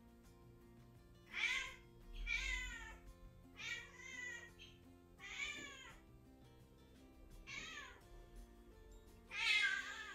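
A Scottish kitten meowing repeatedly, about six drawn-out, high-pitched cries, the loudest near the end: a kitten crying for its absent owner while left alone. Soft background music runs underneath.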